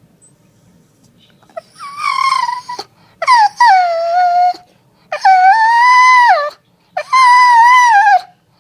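Shiba Inu giving four long, high, wavering cries, the first starting about two seconds in: the dog's vocal reaction to a person's sneeze.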